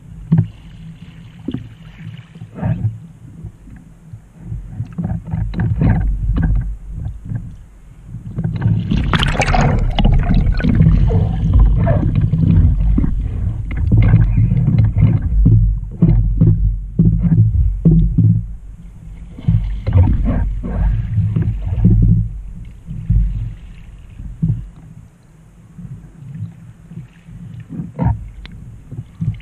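Wind buffeting the microphone of a camera on a kayak's bow, with water splashing from the paddle strokes and slapping the hull. The wind noise and splashing are loudest from about eight seconds in until about twenty-two seconds.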